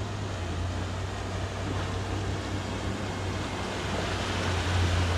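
Four-wheel-drive engine running with a steady low hum under loud rushing noise that slowly builds.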